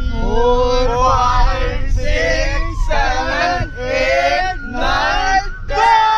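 Background music: a male voice singing a melodic song in phrases of about a second each, the pitch gliding up and down, over a low steady rumble.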